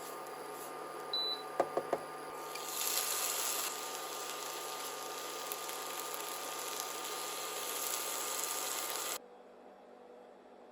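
Steady hum of a running kitchen appliance, with a short high beep about a second in followed by three quick clicks; the sound cuts off abruptly near the end, leaving a faint hum.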